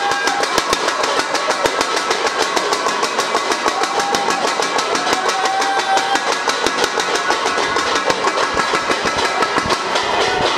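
A group banging on pots, cans and other household objects as noisemakers, a fast, steady clatter of many strikes, with voices shouting over it.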